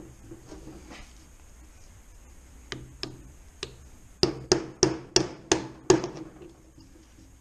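Hammer blows on metal parts of a VW 085 gearbox being stripped. A few light taps come first, then six sharp strikes about three a second, working loose a part that is stuck fast.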